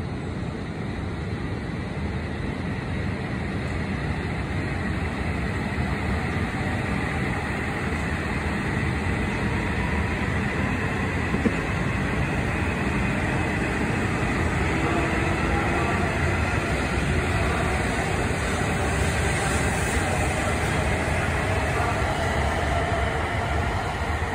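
H5 series Shinkansen pulling out of the station and gathering speed past the platform, its running noise slowly growing louder, with a faint rising whine from the traction motors in the second half and a single click about halfway.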